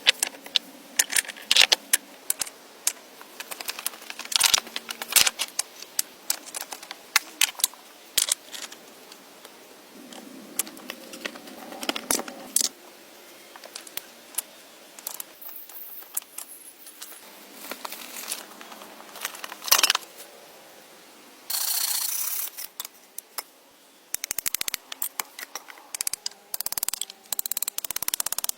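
Hands-on shelter building: an irregular run of sharp clicks, knocks and snaps from handling wood and tools, with a harsh scraping or rustling stretch of about a second and a half about two-thirds of the way through, and denser clicking and scraping near the end.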